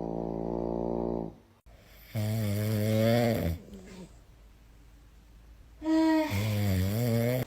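Snoring: three long snores with gaps between them, the first steady in pitch, the second and third wavering and raspy.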